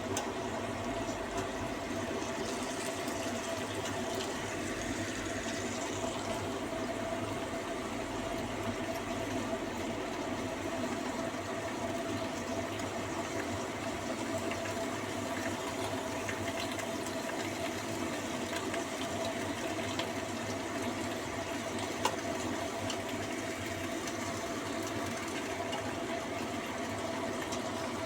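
Pot of vegetables boiling on the stove under a lid: a steady bubbling hiss with a constant hum underneath, and one brief tick about two-thirds of the way through.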